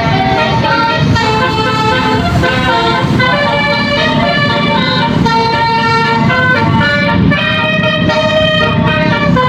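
A bus's multi-tone telolet air horn playing a melody, holding one note after another for about half a second to a second each, over a low engine rumble.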